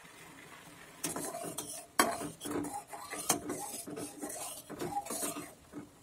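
A metal spoon stirring and scraping milk boiled down for malai kulfi in a metal pan, with sharp clinks against the pan. The stirring starts about a second in.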